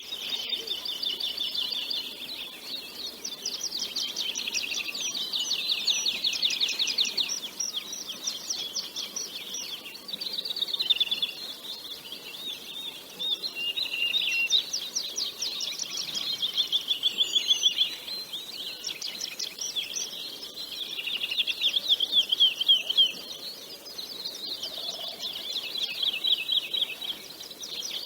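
Small songbirds singing continuously in long, rapid trills and chirping phrases, high-pitched and overlapping, swelling and fading phrase by phrase.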